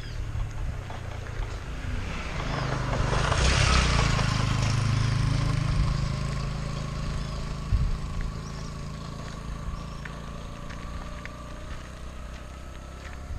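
A small motorcycle overtakes close by, its engine loudest about four seconds in, then fading as it pulls away ahead. Bicycle tyres crunch on gravel underneath.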